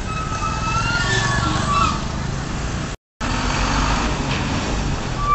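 Street traffic: car and minibus engines running as they pass close by, over a steady low road rumble, with a few short high whistling tones in the first two seconds. The sound cuts out for an instant about three seconds in.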